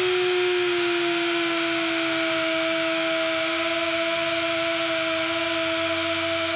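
Outboard motor running steadily at idle, a high, even whine that settles slightly lower in pitch over the first second or so, over a steady hiss.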